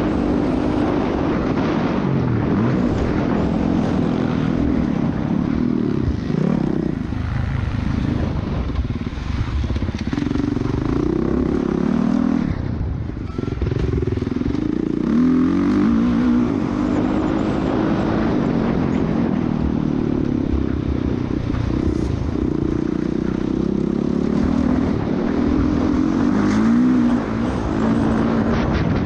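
Motocross dirt bike engine heard from an onboard camera, revving up and falling back again and again as the rider works through the gears around the track. The engine note drops off briefly about thirteen seconds in as the bike slows for a tight corner, then picks up again.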